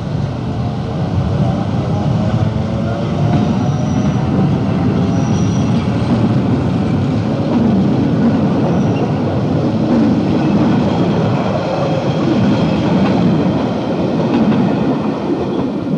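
Passenger train passing close by, the locomotive and then its coaches rolling past with a steady loud rumble of wheels on the rails.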